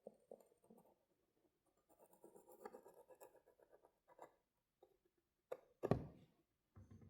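Faint scratchy strokes of a marking tool tracing around a template liner onto thin aluminium sheet. A few sharp knocks come about five and a half to six seconds in, the loudest sounds here, and a dull thud comes near the end.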